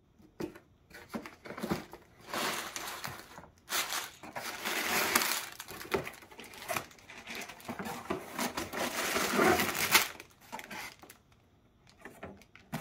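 Plastic bags of Lego bricks crinkling and rattling as they are unpacked, mixed with the cardboard box being opened and shifted, in irregular rustling bursts.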